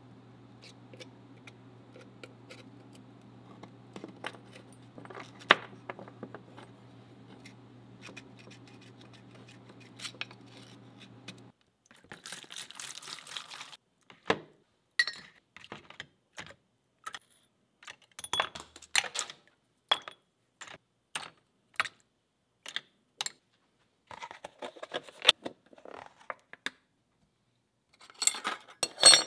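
Small steel rifle parts and hand tools clicking, scraping and clinking against one another and the workbench in scattered sharp taps. A steady low hum sounds under the first part and cuts off about eleven seconds in.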